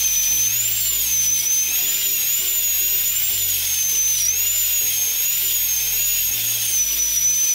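Play-Doh Doctor Drill 'n Fill toy dental drill running against a modelling-clay tooth, a high-pitched whine that wavers up and down in pitch.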